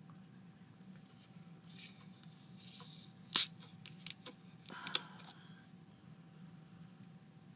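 Screw cap being twisted off a plastic bottle of carbonated peach soda: a brief hiss of escaping fizz, then one sharp click, followed by a few smaller clicks as the bottle is handled.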